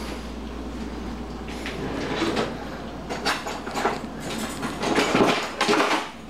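Kitchen handling noises: a string of light knocks and scrapes, as of jars and cookware being handled. Under them runs a steady low hum that stops abruptly about five seconds in.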